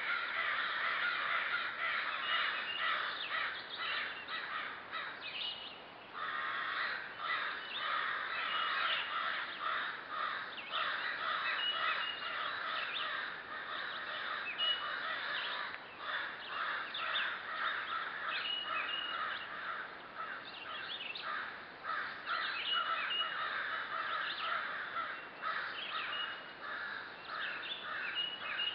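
Birds calling: a dense, continuous run of harsh calls, with a short higher note repeating every couple of seconds and a brief break about six seconds in.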